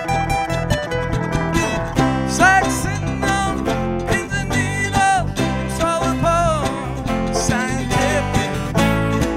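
Live acoustic band music: strummed acoustic guitar over electric bass, with a picked melody line at first. A man's singing voice comes in about two seconds in.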